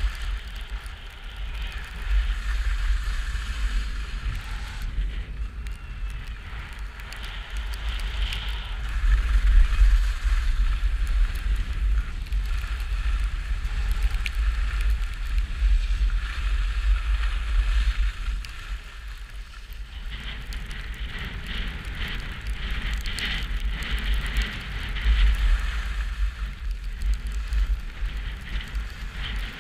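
Skis scraping and hissing over groomed snow while skiing downhill, with wind rushing over a GoPro's microphone; the rush swells and eases with speed.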